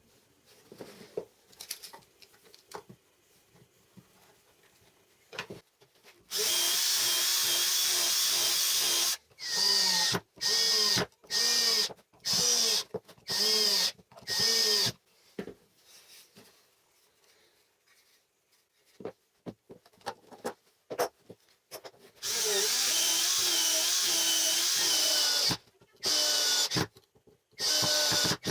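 Power drill running in a steady run of a few seconds, then in a string of short trigger bursts about a second apart. A second long run and more short bursts come near the end, with light clicks of handling in the quiet stretches between.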